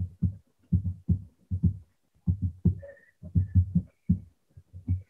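Muffled, garbled voice coming through a poor remote call connection: a run of low, throbbing pulses at a talking rhythm, with only the low part of the voice getting through and no words to make out.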